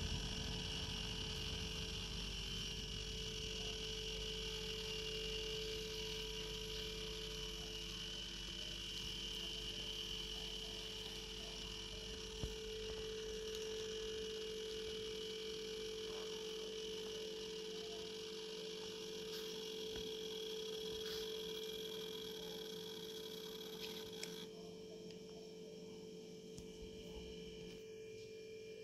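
Roco H0 model BR 185 electric locomotive running on the layout track with its freight train: a steady motor hum with a thin high whine over a low rumble of wheels on rails. About 24 seconds in, the whine drops away and the sound gets quieter.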